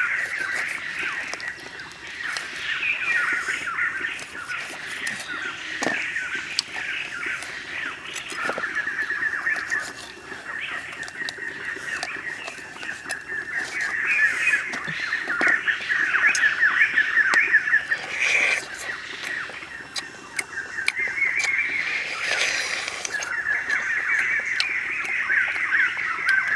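A dense night chorus of rapid trilling animal calls, swelling and fading in loudness, with scattered sharp clicks from a knife cutting through a roasted duck.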